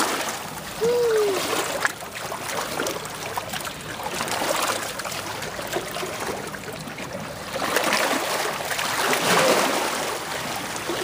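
Shallow lake water splashing and sloshing over rocks as bare feet kick in it, louder near the start and again late on. One short squeal-like tone that rises then falls sounds about a second in.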